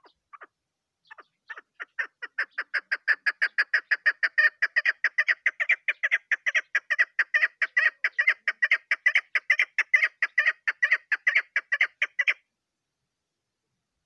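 Female chukar partridge calling: a long rapid series of short chuck notes, about six a second, starting soft and sparse and building louder, then stopping suddenly near the end.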